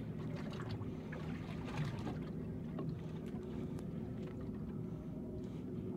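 Fishing boat's engine running steadily at low speed, a low even hum, with water splashing against the hull.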